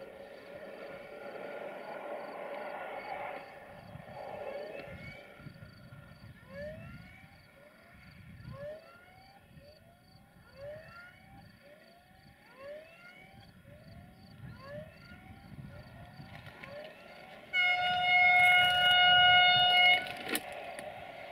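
Siemens Desiro VT642 diesel multiple unit's horn sounding one long, loud chord of several steady tones near the end for about two and a half seconds, cutting off suddenly. Before it, the approach is quiet, with short rising chirps about once a second.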